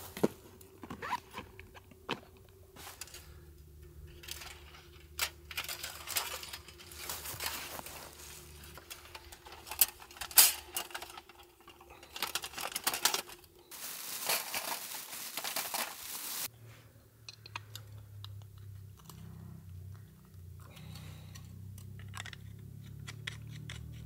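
Camping cookware and a folding metal fire box being handled and set up: a run of knocks, clinks and scrapes, with a few seconds of loud crinkling and rustling past the middle.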